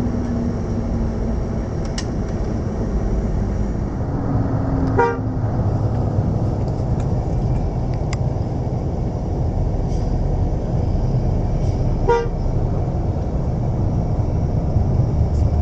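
Steady low engine and road rumble heard from inside a moving bus, with two short horn toots, one about five seconds in and another about twelve seconds in.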